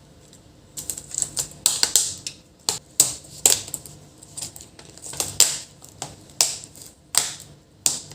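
Irregular sharp clicks and taps, about a dozen, starting about a second in, as a replacement laptop speaker is handled and pressed into place in the laptop's body.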